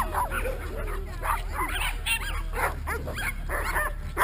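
Small dogs barking and yipping, short high calls coming several times a second over a steady low rumble.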